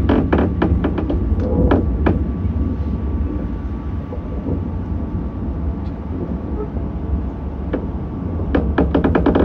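A train running on the rails: a steady low rumble, with a clatter of wheels over rail joints in the first two seconds and again near the end.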